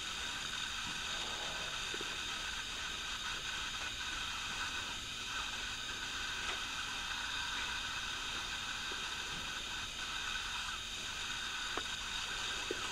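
Steady hiss of a quiet room and the recorder's own noise, with a few faint ticks.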